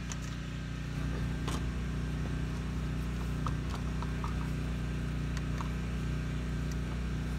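Generator engine running at a steady hum, with a couple of light clicks over it.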